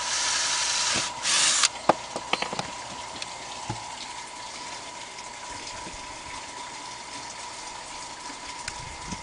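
Water running steadily, with a loud hissing rush over the first second and a half, then a handful of sharp clicks as PVC pipe fittings are handled.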